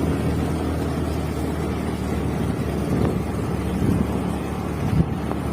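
Motor scooter engine running steadily while riding uphill, heard with wind buffeting the phone's microphone.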